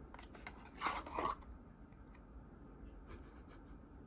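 Cardboard box and paper wrapping rubbing and scraping as a glass bottle is slid out of the box. There are two louder scrapes about a second in and a few faint rustles near the three-second mark.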